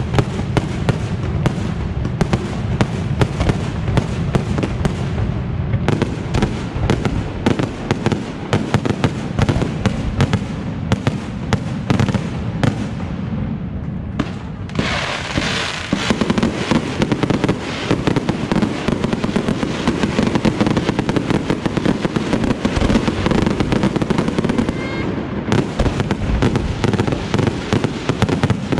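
Aerial fireworks display: a dense, rapid barrage of shell bursts and bangs, with a sudden bright hissing crackle about halfway through.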